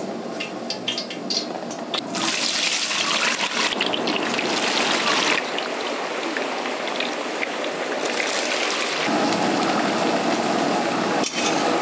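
Cooking oil being poured into a large cooking pot: a steady rushing pour of liquid that grows louder about two seconds in and carries on.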